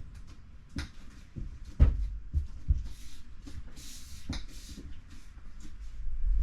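Handling noises at a refrigerator door: irregular knocks and taps, the sharpest about two seconds in, with short scratchy rustles in the middle, as metal plates are pressed into the door insets with double-sided tape.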